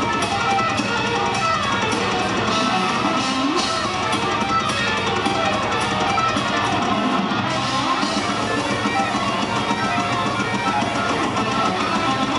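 Live heavy metal band playing: distorted electric guitars, bass and drums, loud and continuous through a venue PA.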